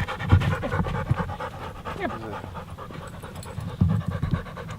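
A dog panting rapidly and steadily close to the microphone, a stray hunting dog that has come up to the people.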